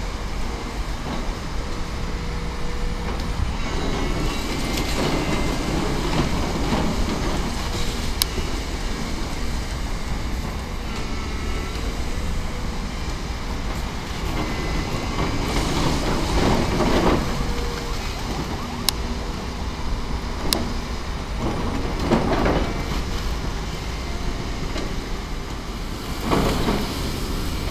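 Volvo tracked excavator's diesel engine running steadily while its arm pulls down brick walls, with rubble and masonry crashing down several times and a few sharp cracks.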